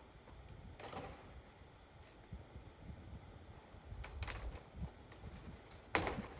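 Three sharp cracks against faint background noise: one about a second in, another about four seconds in, and the loudest near the end.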